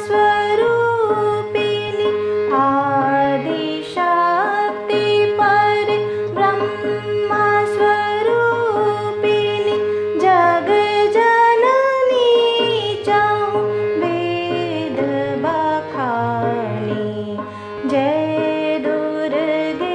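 A singer performs a chhota khyal bandish in Raag Durga in teentaal, with gliding, ornamented melodic lines over a steady drone and tabla strokes.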